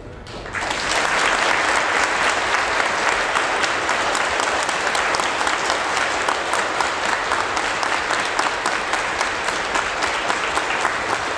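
A large audience applauding: a dense, steady patter of many hand claps that swells up about half a second in.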